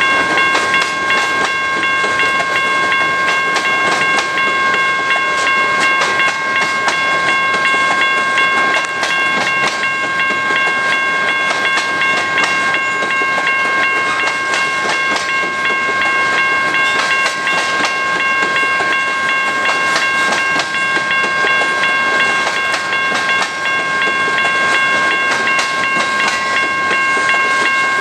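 Freight train of covered hopper cars rolling past close by, its wheels clicking over the rail joints. A steady, high-pitched squeal of several tones sounds over the rumble without changing pitch.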